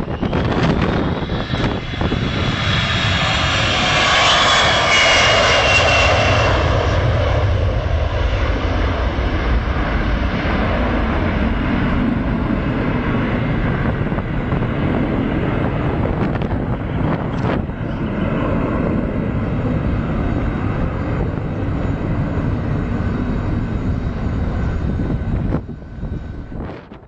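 Boeing E-3 Sentry AWACS jet engines at takeoff power during a touch-and-go, a loud jet roar. A high whine falls in pitch as the aircraft passes, then a steady roar as it climbs away. The level drops suddenly near the end.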